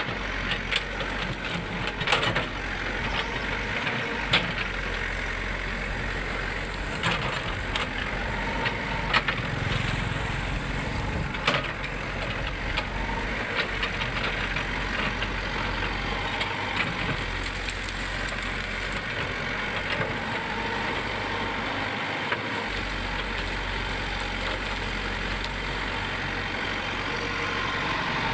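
Heavy diesel engine of an excavator running steadily, with scattered short knocks and clanks through it.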